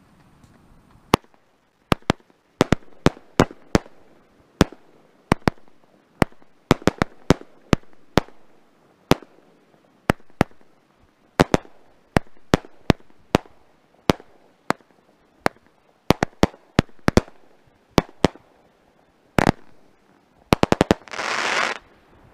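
A 25-shot, 200-gram consumer firework cake firing its shots one after another as a run of sharp bangs, some in quick pairs. Near the end it fires a dense burst of crackle as its finale.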